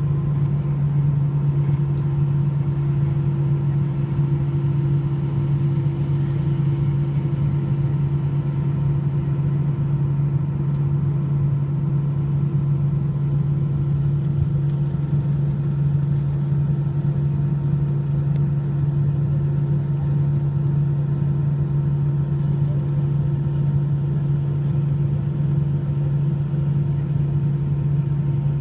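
Jet airliner's engines idling, heard from inside the cabin over the wing as a steady low hum with fainter steady tones above it, while the plane waits for takeoff.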